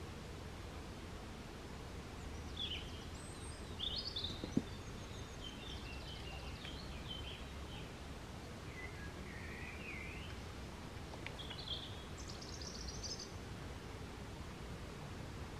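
Small birds singing and calling in short, scattered phrases over a low steady background rumble, with one sharp click about four and a half seconds in.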